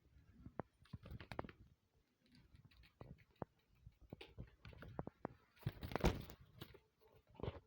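Irregular light taps, clicks and scratchy rustling, with a louder burst of rustling about six seconds in.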